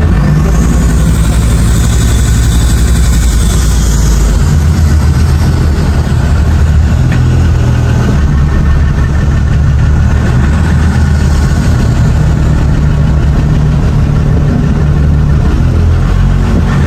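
Engine of a homemade boat running steadily, heard from inside its aluminium cockpit, its pitch stepping up and down a couple of times.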